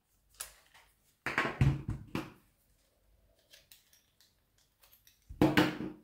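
Handling noise from a camera and its microphone mount being picked up and fitted: a click, then a cluster of short scraping, clattering sounds about a second in, and another near the end.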